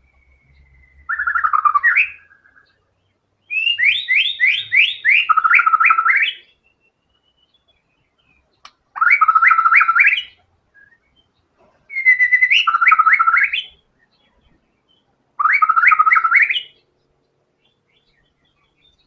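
White-rumped shama (murai batu) singing in full voice, running through its learned fill-in phrases. The song comes as five bursts of rapid, repeated rising whistled notes, each burst one to three seconds long, with short pauses between.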